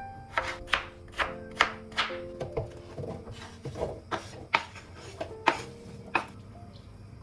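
Knife chopping food on a cutting board: about a dozen sharp, irregularly spaced strokes that stop near the end, over soft background music.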